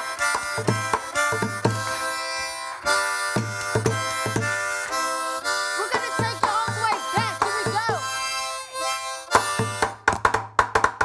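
Harmonica played in a neck rack, holding chords and bending notes, over a steady beat on bucket drums. About a second before the end the harmonica drops out and a fast run of drum hits takes over.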